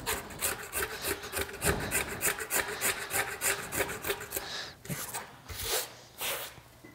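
Hand tool skiving and shaving a leather ground seat over the saddle tree's cantle, in quick repeated scraping strokes.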